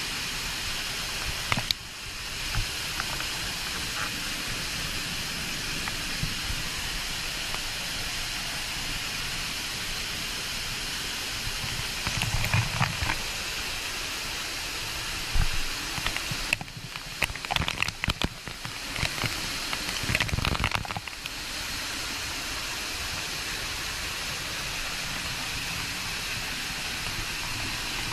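Waterfall rushing as a steady, even roar of falling water, with a few short knocks and brief drops in level in the middle.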